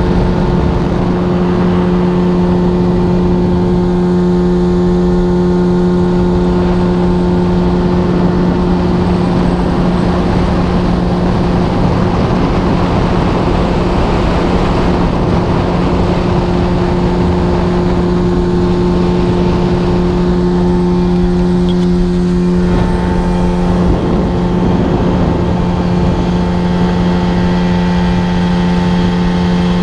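Mercury 30 hp two-stroke outboard motor running steadily at constant speed, with wind and water rushing past.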